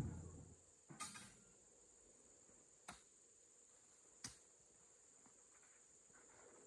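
Insects trilling steadily at a high pitch, with three short, sharp knocks spaced one to two seconds apart.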